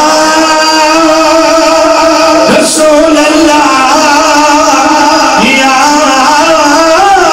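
A man's voice chanting a melodic religious recitation in long held notes, amplified through a microphone. New phrases begin with a rising swoop about two and a half seconds in and again about five and a half seconds in.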